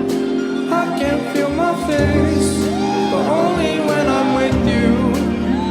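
Music with sustained chords, a bass line and a gliding melody line.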